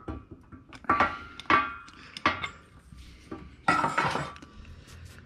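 Steel bearing-pressing tooling being handled on an MGB front hub in a hydraulic shop press after the outer race has been pressed home: a handful of sharp metal-on-metal clinks and knocks, several with a brief ring, the loudest near the end.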